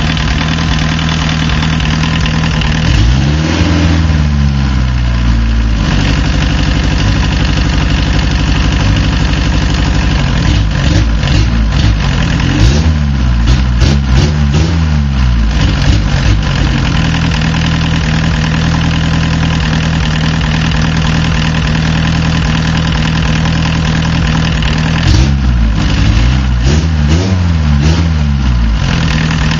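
VW diesel engine idling, blipped up in rpm and back down in three spells, about four seconds in, from ten to sixteen seconds, and near the end. One cylinder is missing at idle and low rpm once warm, which the owner puts down to a bad injector with a poor spray pattern that doesn't open well on little fuel.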